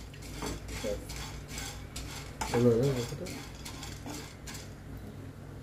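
Hulled sunflower seeds being dry-roasted in a nonstick frying pan, raked and stirred with a wooden spatula: a rustling scrape about three times a second that stops near the end. A brief voice is heard about two and a half seconds in.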